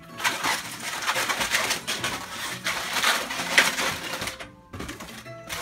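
Inflated 260 latex modelling balloons squeaking and rubbing against each other and against hands as they are twisted and woven together, with a short pause near the end.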